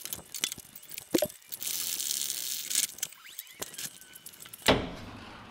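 Metal clicks, clinks and scraping of tools and bolts as a Nissan NP300's rear shock absorber is unbolted and worked free by hand. A thump near the end, then a steady low hum.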